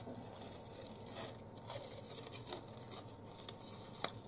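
Irregular rustling and crinkling of wrapping being handled, with small scattered clicks and a sharper click near the end.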